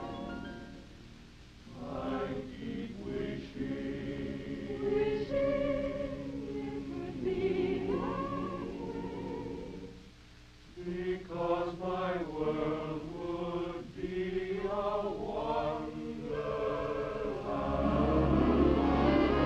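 Men singing together in chorus with musical backing. The singing drops away briefly about ten seconds in, and the music grows louder near the end.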